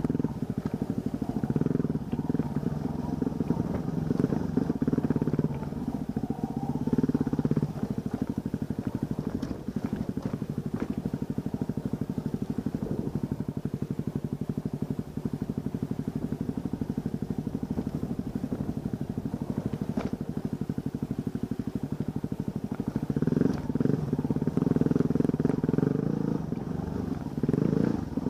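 Off-road vehicle's engine running as it crawls over slickrock, pulling harder for the first several seconds and again near the end, with a quieter steady stretch in between.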